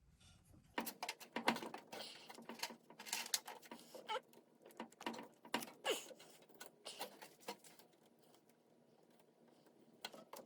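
Irregular clicks, scrapes and short squeaks of hand-tool work on a steering shaft coupler, dimpling the shaft for the set screw; busy for about six seconds from a second in, then tapering off.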